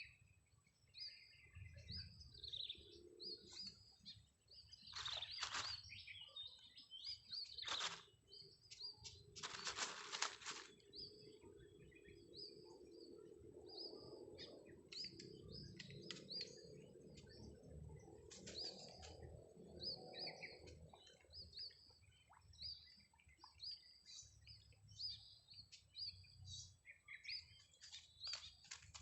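Birds chirping, short high calls repeating about once a second, with a few brief noisy rustles and a faint low hum in the middle.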